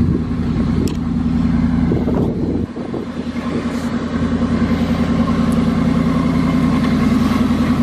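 Dodge Ram pickup's engine idling with a steady, rapid pulse, sagging briefly about three seconds in.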